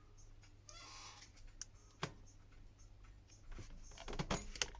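Light clicks and taps of small tools and phone parts being handled during a smartphone screen repair. There is a brief scraping rustle about a second in, a few single clicks, and a quick run of clicks near the end.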